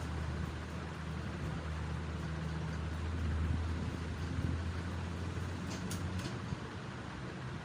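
Low, steady motor hum that stops about six seconds in, with a few short clicks just before it ends.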